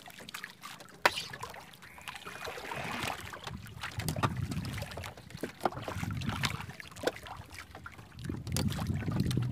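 A wooden paddle working the sea beside a small outrigger boat: water splashing and trickling around the blade, with scattered sharp knocks, the loudest about a second in. The water sound grows fuller from about halfway through.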